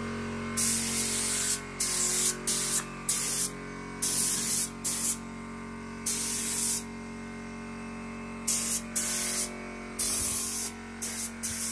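Compressed-air paint spray gun spraying in about a dozen short bursts of hiss, each trigger pull lasting from a fraction of a second to about a second, over a steady low hum.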